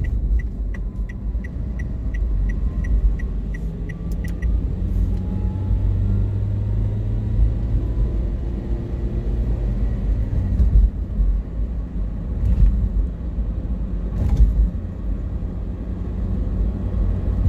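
Steady low rumble of engine and tyre noise inside a moving car's cabin on a highway. A light, regular ticking, about three ticks a second, runs for the first four seconds or so and then stops.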